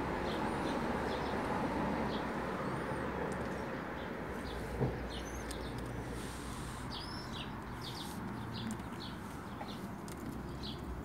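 Small birds chirping over and over in short high notes, with a few sliding whistled calls, over a steady low background rumble. A single brief knock sounds about halfway through.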